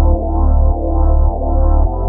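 Background music: sustained chords over a low bass note that changes about every half second.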